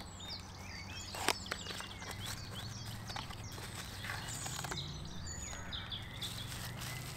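A small cardboard product box being opened by hand: flaps scraping and rustling, with a sharp click about a second in, then plastic bubble wrap crinkling as the packed item is pulled out.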